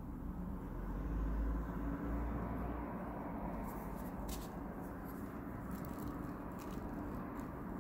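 Light, scattered clicks of metal tweezers and small mosaic tiles as pieces are set into the mosaic, mostly from about three and a half seconds in, over a steady low hum.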